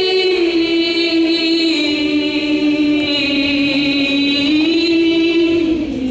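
A woman's voice singing one long held note with little or no accompaniment. The pitch sags slightly, lifts again about three-quarters of the way through, then steps down near the end.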